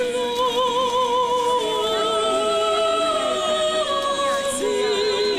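Church choir singing an unaccompanied Orthodox liturgical chant, several voices holding long notes in harmony with vibrato. The singing begins abruptly at the start.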